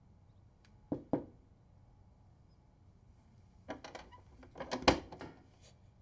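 Objects being handled against wood: two quick knocks about a second in, then a run of clattering knocks near the end, the loudest a single sharp knock about five seconds in.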